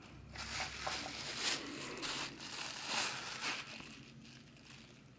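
Packaging crinkling and rustling as the contents of a product box are handled, irregular for about three and a half seconds before dying away.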